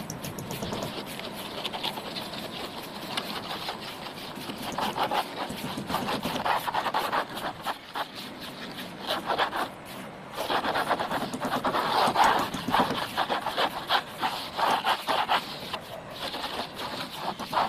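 A plastering tool scraping and rubbing across a rendered surface in repeated rough strokes, coming in bouts that grow louder in the second half.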